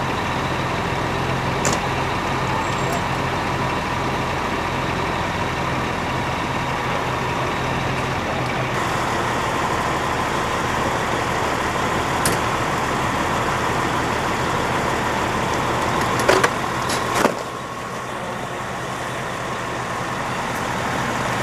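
Fire engine's engine running steadily with its pump engaged, feeding the charged hose lines at the pump panel, a steady tone sounding over the low hum. A few sharp clanks, two close together near the end, after which the low rumble drops away.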